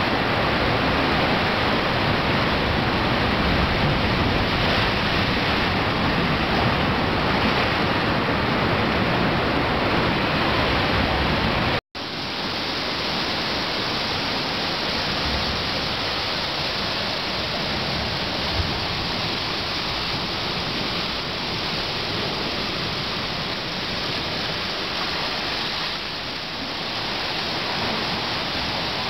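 Sea water surging and churning over rocks in a steady rush of surf. It breaks off for a moment about twelve seconds in, then carries on a little quieter.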